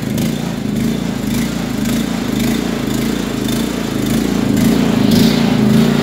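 Air-cooled, pull-start petrol engine of a DACK SMP 13/85 bandsaw mill running steadily just after starting, with the choke now off; it runs smooth.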